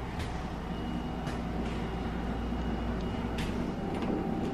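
Steady low mechanical hum filling the room, with a few faint light clicks.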